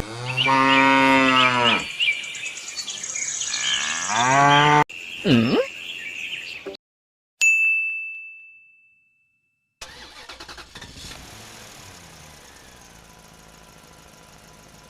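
Cow mooing: two long moos in the first five seconds. About seven and a half seconds in comes a single high bell-like ding that rings out. From about ten seconds on there is a faint, steady, engine-like running.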